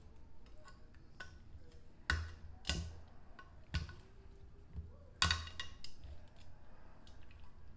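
Metal kitchen tongs clinking against a glass baking dish as raw spare ribs are turned over: several sharp clinks with a short ring, the loudest about five seconds in.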